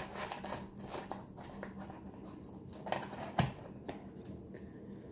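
Light handling noises of small objects being picked up and moved on a table: a few soft taps and rustles, with one sharper knock about three and a half seconds in.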